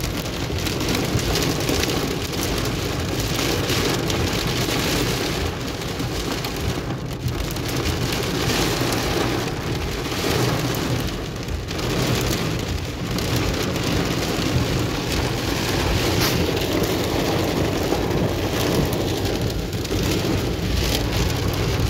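Torrential rain and hail beating steadily on the roof and windshield of a car, heard from inside the cabin.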